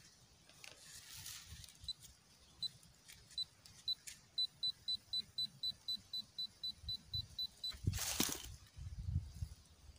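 Metal-detecting pinpointer beeping in short high-pitched beeps, slow at first and then speeding up to a steady run of about four a second: the sign of the probe closing in on a metal target in the soil. The beeping stops just before eight seconds in, and a short burst of a tool scraping through loose soil follows.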